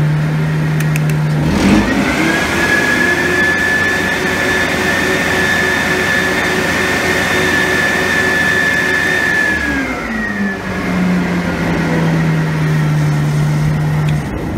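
Sapphire 870 truck-mount carpet cleaning machine's engine and vacuum blower pulling vacuum with no hose attached. It rises from idle to high speed about two seconds in, with a steady high whine, then drops back to idle about ten seconds in and shuts off near the end.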